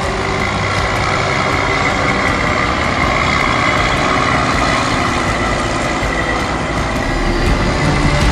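Claas Xerion 5000 tractor engine running steadily under load while ploughing, with a faint steady whine above the engine noise.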